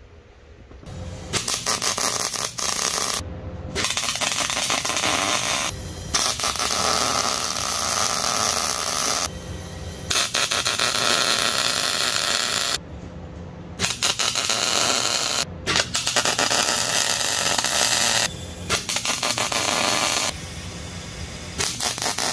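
Arc welding crackling as steel supports are welded onto an axle truss, laid down in beads of a few seconds each with short breaks between them. The arc starts about a second in and is fainter near the end.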